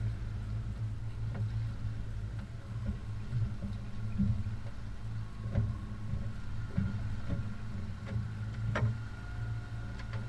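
Outboard motor running steadily at low trolling speed, a constant low drone, with a few sharp knocks about the boat, the loudest near the end.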